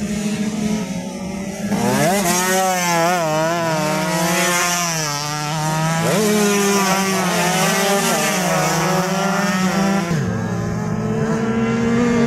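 Several two-stroke race motorcycles, 130 cc Yamaha F1ZR underbones, running hard past the corner. Their engine pitches rise and fall as riders change gear and throttle. The sound grows louder about two seconds in as the pack arrives.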